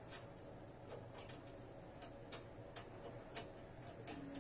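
Faint, irregular light ticks, roughly two a second, of a steel nut being spun finger-tight onto a bolt by hand.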